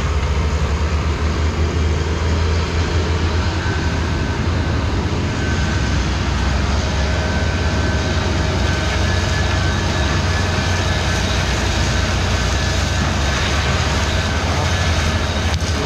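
New Holland T7 tractor's diesel engine running steadily under load as it pulls a trailer of cut sugarcane, a loud continuous low drone. A faint steady high whine joins about three and a half seconds in.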